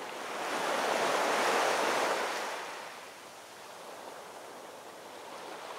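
Ocean surf: a wave swells and washes in, loudest about a second and a half in and subsiding by about three seconds, over a steady hiss of sea noise.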